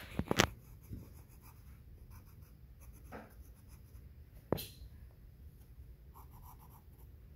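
H graphite pencil scratching across sketchbook paper as lines are drawn, with a cluster of sharp taps about half a second in and one more about four and a half seconds in.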